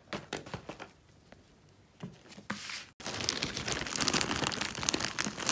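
Plastic courier mailer bag crinkling and rustling as it is handled, starting about halfway through after a few scattered light taps.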